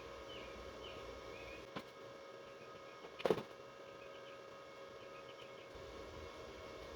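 Quiet room tone with a steady electrical hum and faint high chirps. A light click comes about two seconds in, and a short knock just after three seconds.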